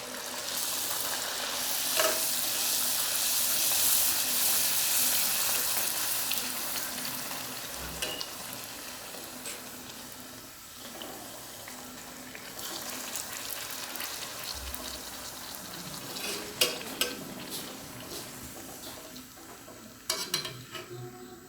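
Beetroot pooris deep-frying in hot oil: a sizzle that swells over the first few seconds, then eases to a steadier, quieter frying. A few sharp clicks sound through it, mostly near the end.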